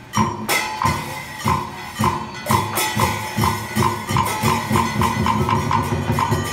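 Traditional Vietnamese water-puppet theatre music with percussion struck in a regular beat that quickens from about three strokes a second to about four. Each stroke has a low thud and a ringing tone.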